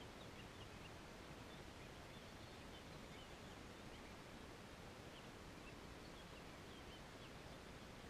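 Near silence: quiet outdoor evening ambience, a faint steady hiss with a scattering of faint, short high chirps.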